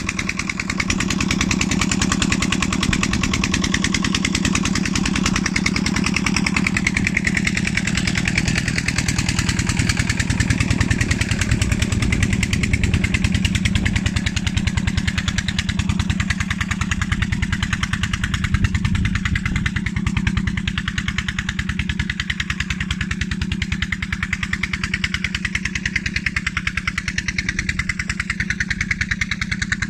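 An engine running steadily at an even speed: a constant low hum over a fast, even beat that eases a little in level in the second half.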